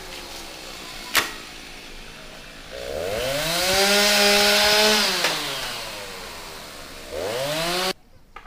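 Two-stroke chainsaw revved up and held at full speed for about two seconds, then easing back down, revved again briefly near the end and cut off abruptly. A sharp click comes about a second in.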